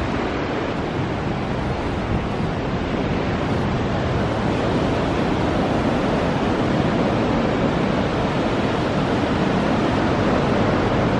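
Pacific Ocean surf: waves breaking and washing up a beach in a steady rush, with wind on the microphone.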